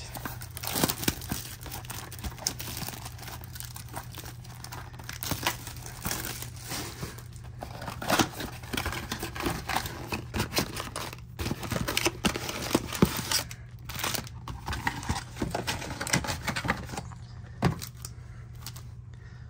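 A cardboard trading-card box being opened by hand and its wrapped packs pulled out and stacked: irregular crinkling and tearing of packaging with scattered sharp clicks and rustles.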